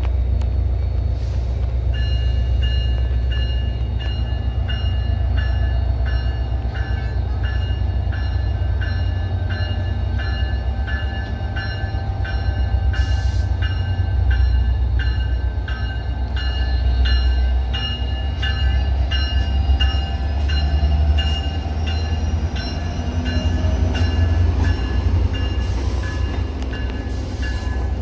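A locomotive bell ringing steadily about twice a second, starting a couple of seconds in, over the heavy low rumble of a train as a commuter train moves out.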